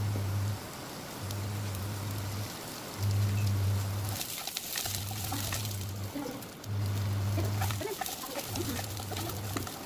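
Green beans sizzling in oil in a frying pan, a faint hiss with scattered crackles that grows denser about halfway through, with spatula scrapes near the end. A low hum switches on and off in blocks about a second long, roughly every second and a half.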